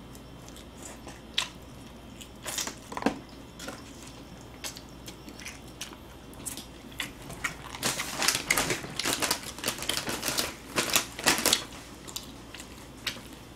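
Crunching and chewing of crispy fried chicken drumsticks: scattered crisp crackles at first, then a dense run of rapid crunches in the second half.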